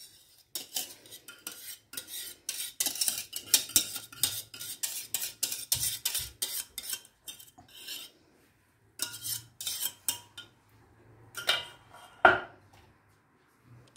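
Metal wire whisk scraping and clinking against the inside of a metal pot, rapid strokes as cooked milk pudding is scraped out into a glass bowl, followed near the end by two louder knocks.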